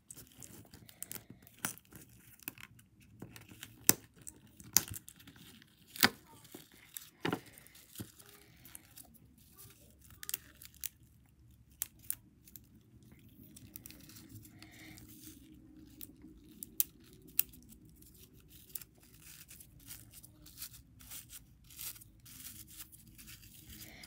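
Tissue paper crinkling and rustling in the hands while being bunched and wrapped with rubber bands: irregular crackles with scattered sharp clicks, the loudest a few seconds in, over a faint low hum.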